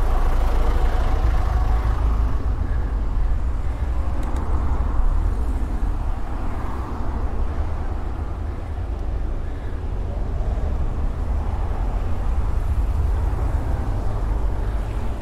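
City traffic: a steady low rumble of car and truck engines close on both sides, heard from a bicycle riding between lanes of slow traffic.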